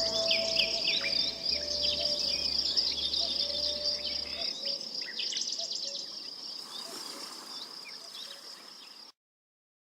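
Forest ambience: a steady high insect trill with birds chirping over it, above a low drone that stops about four and a half seconds in. Everything fades down and cuts off about nine seconds in.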